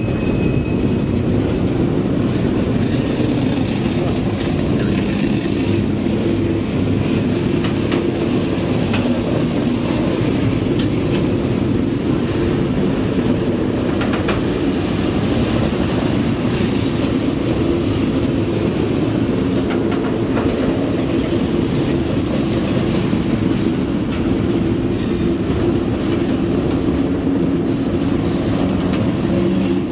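Covered hopper cars of a freight train rolling past: a steady, loud rumble of steel wheels on rail with scattered clicks over the joints. A thin high squeal fades out about a second in.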